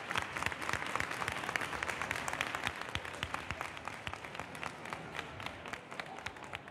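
An audience applauding, many hands clapping at once, the applause slowly thinning and fading.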